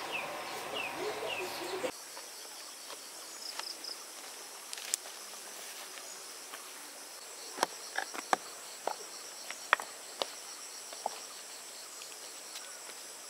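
Insects chirring steadily in a high, even drone, with scattered sharp clicks and taps in the second half. A few short falling chirps sound in the first two seconds.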